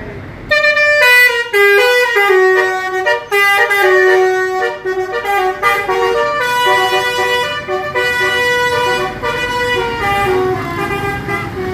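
Bus 'telolet' musical horn of the basuri type playing a tune of stepped notes, starting about half a second in and going on through a run of changing pitches.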